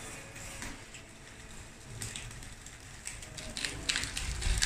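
Gravel crunching and rattling as a radio-controlled Cat D8T bulldozer model pushes through it with its blade and tracks. The crackle is sparse at first, then grows denser and louder from about halfway through.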